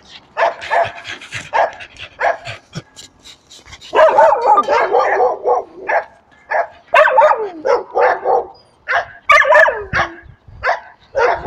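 Several dogs barking and yipping in short, repeated barks. There is a dense run of barks from about four seconds in, then single barks about every half second, some dropping in pitch.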